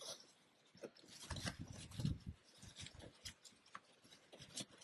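Straps on a canoe pack being pulled tight through their buckles by hand: faint rustling, scraping and small clicks, with a brief low rumble around the middle.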